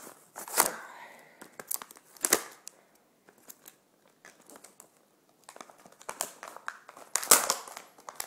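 Knife package being cut and torn open with a second pocket knife: irregular sharp clicks and rustling of the packaging, with a quiet pause of about two seconds in the middle.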